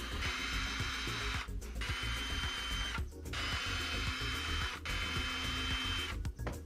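A power tool running in four bursts of about a second each, its whine rising quickly at each start and cutting off between bursts, over background music.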